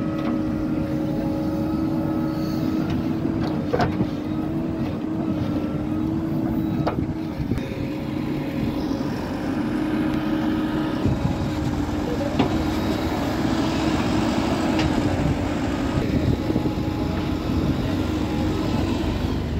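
Diesel engine of a JCB 4DX backhoe loader running steadily under working load as it digs and loads soil, with a few sharp knocks from the bucket and the steel tractor trolley.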